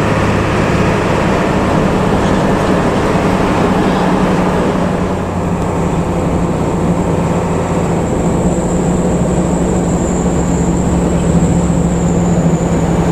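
Intercity bus running at road speed, heard from inside: a steady low engine drone under tyre and road noise, with a thin high whine that comes in about halfway through.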